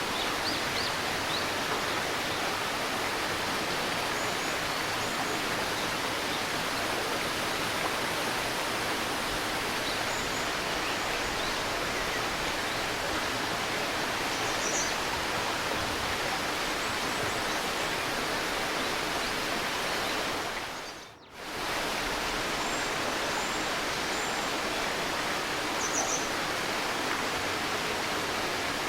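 River babbling: a steady rush of flowing water, with small birds giving short, high chirps now and then. About two-thirds of the way through, the sound briefly fades almost out and comes straight back.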